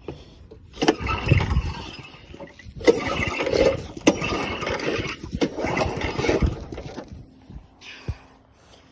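Push lawnmower's small engine being pull-started over and over, the recoil starter cranking it in rough bursts with clicks, without catching. The fuel tap is turned off.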